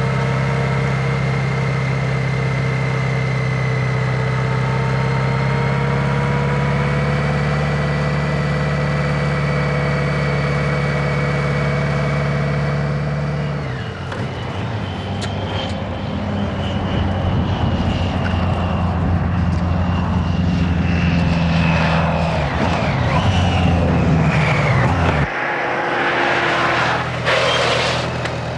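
Motorcycle engine running at a steady cruising speed. About halfway through the sound changes and the engine note shifts and falls as the bike slows, then cuts off abruptly a few seconds before the end.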